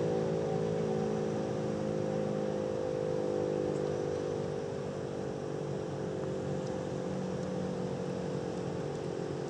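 Federal Signal Model 7 outdoor warning siren sounding a steady tone. Its pitch drifts slightly lower and it grows a little quieter over the first half, then holds.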